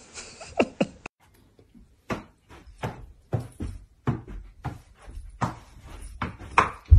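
Toilet roll being juggled on feet and knees: a run of soft taps at about two a second, mixed with footfalls on the floor. About half a second in there are two short squeaks that fall in pitch.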